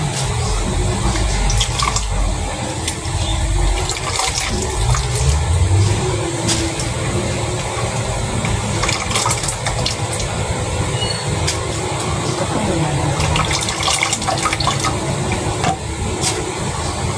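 Grated coconut being kneaded and squeezed by hand in a pot, the pressed coconut milk splashing and trickling into it, with wet squelching and many small sharp clicks throughout.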